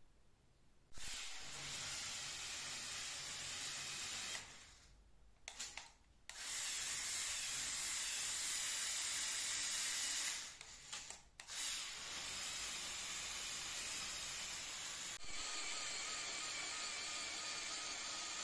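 LEGO Power Functions electric motors whirring through plastic gearboxes, starting about a second in, pausing briefly twice, and shifting to a whinier pitch about three seconds before the end.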